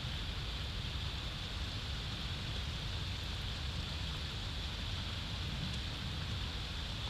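Steady wind buffeting an outdoor microphone: a low rumble with an even hiss over it.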